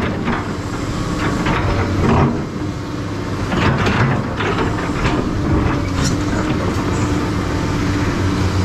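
SANY SY215C hydraulic excavator working, its diesel engine running steadily under repeated short clanks and scrapes from the machine at work.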